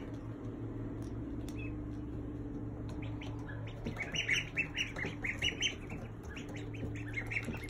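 Ducklings peeping: a quick run of short, high chirps starting about four seconds in, then a few more near the end, over a steady low hum.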